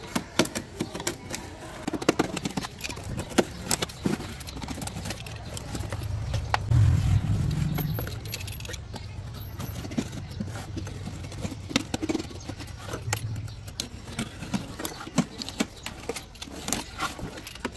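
Metal tools and parts clinking and tapping in irregular handling noises. A low hum swells about six seconds in and fades out by about fourteen seconds.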